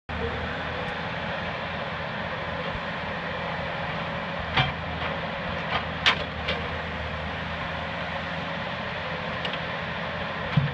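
Knuckleboom log loader's diesel engine running steadily while its grapple sets logs onto a log truck's trailer. Several sharp knocks come as logs clunk into place, the loudest about four and a half and six seconds in, with another near the end.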